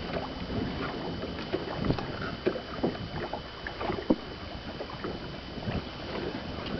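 Scattered knocks and bumps in a fishing boat over a steady background hiss, as a freshly netted northern pike is handled aboard; the sharpest knock comes a little past the middle.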